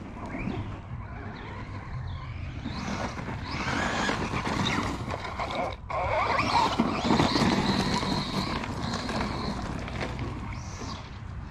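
Brushless Traxxas Rustler 4x4 RC truck, running on a 3D-printed PLA spur gear, driven hard over gravel and grass: a high motor and drivetrain whine rising and falling with the throttle, over the noise of tyres scrabbling and skidding on the gravel.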